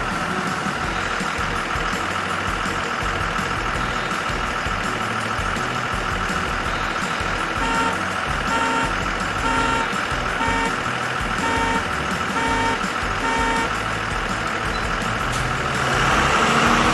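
Bus engine running steadily, with a string of short, evenly spaced beeps for several seconds in the middle, about one and a half a second.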